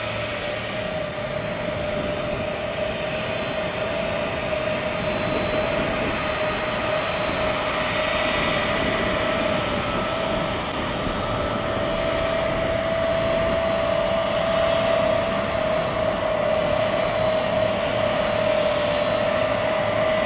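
Lockheed C-5 Galaxy's turbofan engines running as the aircraft taxis past: a steady whine over a rushing hiss that grows gradually louder.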